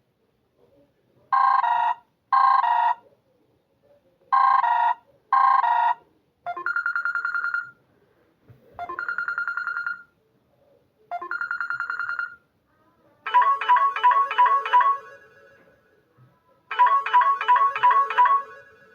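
Samsung Galaxy Pocket ringtones playing one after another. First four short rings in two pairs, then three trilling tones of about a second each, then two quick runs of notes near the end.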